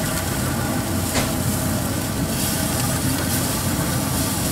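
A steady, even mechanical rumble, engine-like, with a faint hiss above it.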